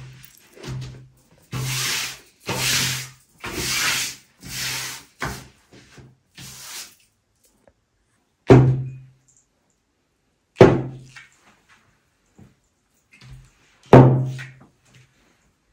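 Fabric swishing and rubbing in about five strokes as a tablecloth is spread and smoothed over a table, followed by three sharp knocks a few seconds apart.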